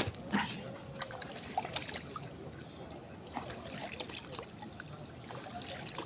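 Small splashes and trickling of river water at the bank where the surface is being disturbed, with two sharp knocks in the first half second and scattered small clicks after.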